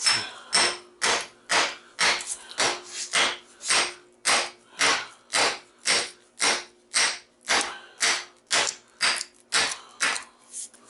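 Hammer striking metal in a steady rhythm of about two blows a second, each with a short metallic ring, knocking apart a small transformer to free its copper coil.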